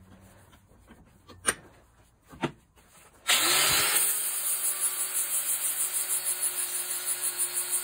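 Two short clicks, then an electric power tool's motor switches on about three seconds in, spins up within a second and runs steadily with a hum and a fast-pulsing hiss.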